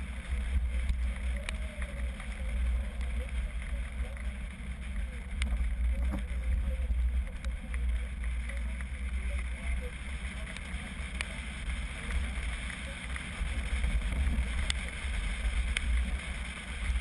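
Wind buffeting the microphone of a roof-mounted camera on a moving vehicle, a steady low rumble with road noise underneath and a few faint clicks.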